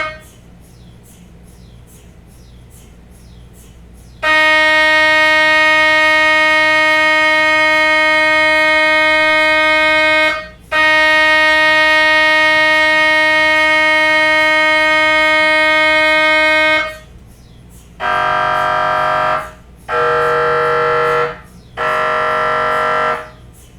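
MRI scanner's gradient coils sounding a loud, steady, pitched drone during a scan sequence. The drone runs for about six seconds, breaks off briefly, then runs about six seconds more. Near the end come three shorter tones at a different pitch, each about a second and a half long.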